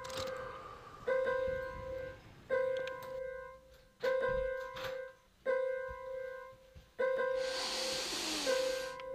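A single high piano note struck again and again, about every one and a half seconds, each one ringing and fading, in the style of a horror-film score. Near the end a long, loud, hissing breath sounds over it, a wheeze through a blocked nose.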